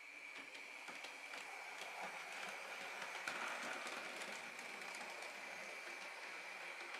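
H0-scale model train running on the layout's track: faint clicking of the wheels over the rail joints over a steady high-pitched whine, growing slightly louder.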